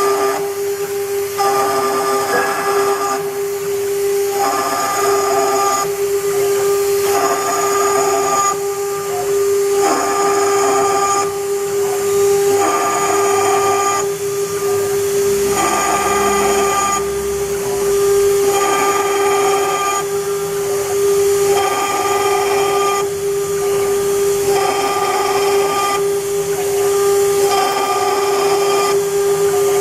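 CNC router spindle whining steadily while its bit engraves copper. The cutting sound switches on and off in passes a second or two long.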